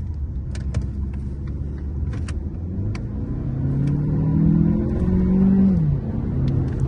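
Chery Tiggo 7 Pro's 1.6 turbo petrol engine heard from inside the cabin as the car pulls away. The engine note rises for about three seconds, then drops sharply near the end as the dual-clutch gearbox shifts up.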